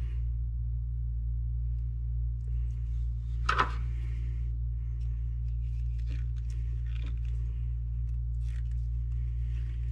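A steady low hum runs throughout. Over it, a crimping tool closes on a wire's ring terminal with one sharp crunch about three and a half seconds in, followed by a few light clicks of the tool and terminals being handled.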